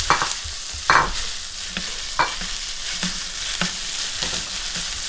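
Noodles sizzling in browned butter in a frying pan, with a utensil stirring them and scraping the pan in short strokes about every half second to a second.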